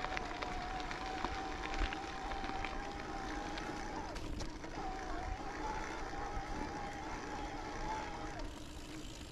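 Mountain bike coasting on a dirt trail: the rear hub's freehub buzzes with a steady high whine, over rolling tyre noise and small rattles and clicks from the bike. The whine glides down and stops about four seconds in as the rider pedals, comes back half a second later, and glides down again near the end.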